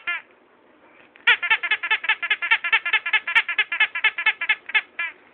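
Squeaky toy squeaking: a short squeak at the start, then from about a second in a fast, even run of high squeaks, about six a second, for nearly four seconds.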